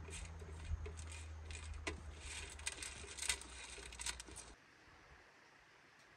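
Footsteps crunching on stony ground, irregular crackling steps over a steady low wind rumble on the microphone. About four and a half seconds in, the sound drops to a faint, quiet background.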